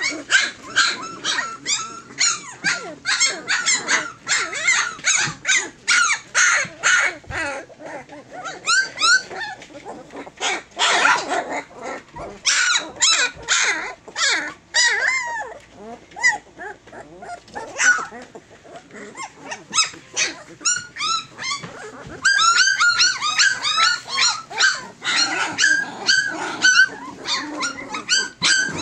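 A litter of nearly three-week-old Tosa Inu puppies yelping and whining together, a constant chorus of short high-pitched cries, several a second. The cries thin out for a few seconds past the middle, then pick up again.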